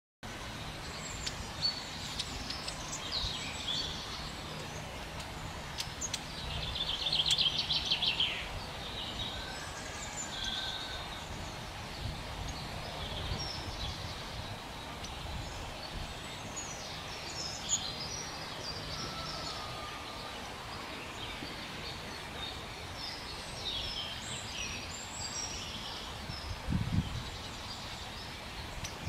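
Woodland birds calling and singing against a steady outdoor background, with a loud rapid trill about seven seconds in. A faint steady low hum runs beneath for roughly the first two-thirds, and there are a couple of low thumps near the end.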